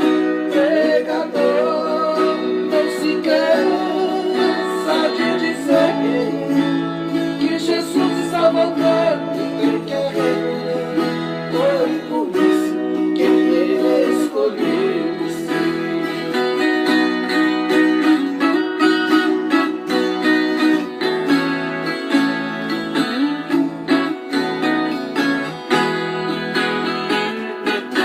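Viola caipira, the Brazilian ten-string steel guitar, playing a gospel song's instrumental passage: a plucked melody over a steady bass line.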